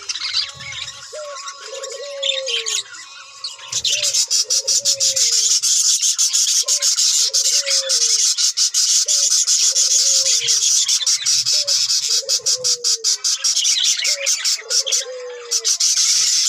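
A flock of small Australian parrots chattering with rapid high chirps, loudest from about four seconds in, while a dove coos over and over with short falling calls underneath.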